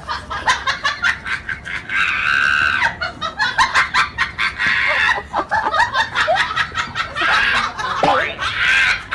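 Someone laughing hard in rapid, high-pitched cackles.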